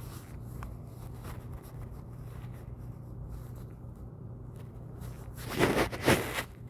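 Steady low hum with a few faint ticks, then a short noisy burst in two parts near the end.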